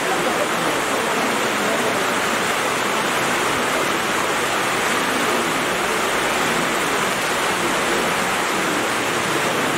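Steady, loud hiss of noise, like static, with no clear sound standing out of it: a fault in the recording's audio.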